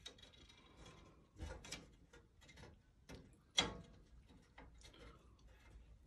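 Faint, irregular small clicks and ticks as a hand works a new thermocouple's wire connector into its socket under a gas hob, with a louder knock about one and a half seconds in and another sharp click about three and a half seconds in.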